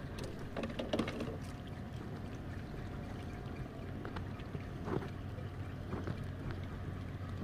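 Water sloshing and splashing at the side of a small boat in short, irregular bursts, over a steady low machine hum.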